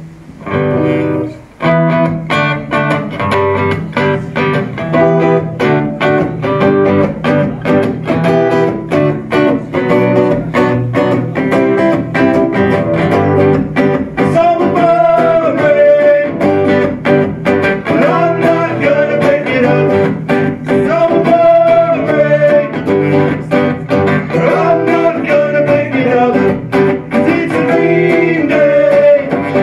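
Live rock cover played by two guitars, one electric and one acoustic, strummed with sung vocals, starting in full about two seconds in.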